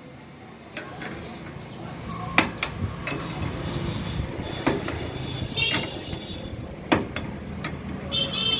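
Scattered sharp metallic knocks and clinks of tools on axle parts while a broken wheel bearing is being taken off, over a steady low hum.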